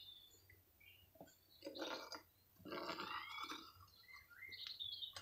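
Stainless steel spoon scraping dross in a crucible of molten aluminium: two short scrapes about a second apart, with birds chirping now and then in the background.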